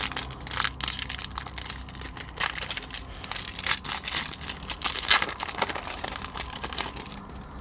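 Wrapper of a 2006-07 Upper Deck Series 1 hockey card pack crinkling and crackling as it is torn open and handled, a run of irregular snaps that dies away near the end.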